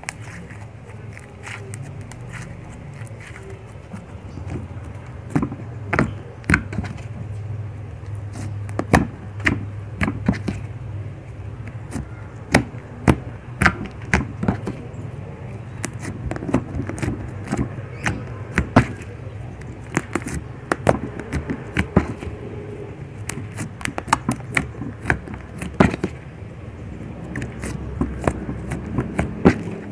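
Homemade toothpaste slime being squeezed, stretched and pressed flat on a wooden table by hand, giving irregular sticky clicks and pops that come more often in the second half.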